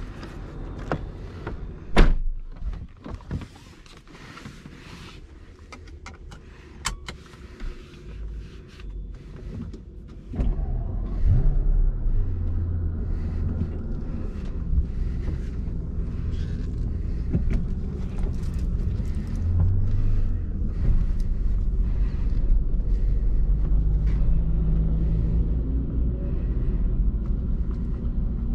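Scattered small clicks and one sharp knock about two seconds in. Then, about ten seconds in, the Mercedes-Benz SL65 AMG's 6.0-litre twin-turbo V12 starts with a brief flare and settles into a steady, deep running sound, its pitch shifting a little later on.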